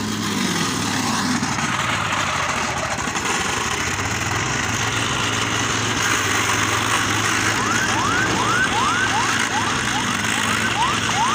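Homemade petrol-engined road-marking removal machine running and grinding a white line off the asphalt: a steady engine hum under a dense grinding noise. From about seven and a half seconds in, a rapid siren-like chirp, rising each time and repeating about three times a second, sounds over it.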